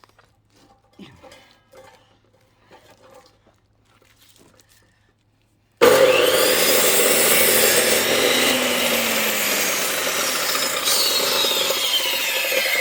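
Faint handling clicks, then about six seconds in a power saw starts cutting into a firewood log, suddenly loud, and keeps cutting; its pitch falls near the end.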